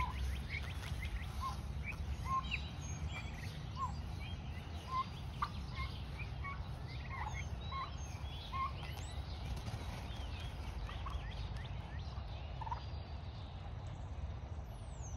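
Outdoor birds calling: many short scattered chirps and calls, some sliding up or down in pitch, over a low steady rumble.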